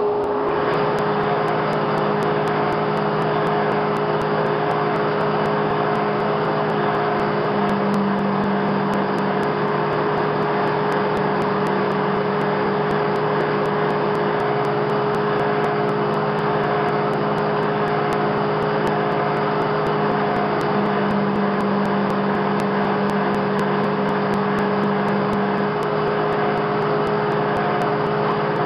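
Shop-built drum thickness sander driven by a ShopSmith, running steadily at speed with a constant whine and hum.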